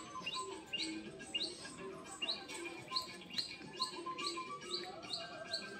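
A bird calling over and over in short, high chirps, about two or three a second.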